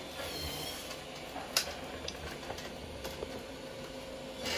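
Roborock S7 MaxV Ultra robot vacuum driving up onto its dock: a low steady motor hum with a few light clicks, the sharpest about one and a half seconds in.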